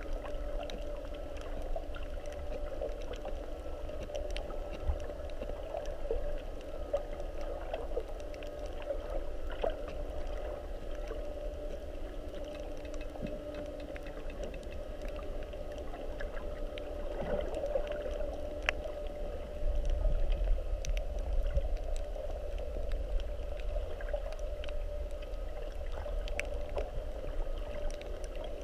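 Underwater sound picked up by a submerged camera: a steady drone and low rumble, scattered with clicks and crackles. The rumble grows louder about two-thirds of the way through.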